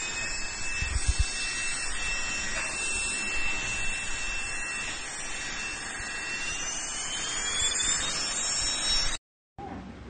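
Airbot Supersonics 3.0 cordless stick vacuum's motor running, a steady rush of air with a thin high whine that climbs slowly in pitch over the last few seconds. There are a couple of low bumps about a second in, and the sound cuts off abruptly near the end.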